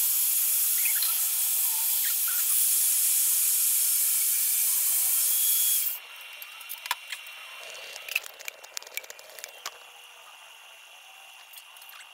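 Vertical band saw cutting thin 24-gauge sheet metal, giving a loud steady hiss that stops abruptly about six seconds in. Light metallic clicks and taps from handling the metal follow.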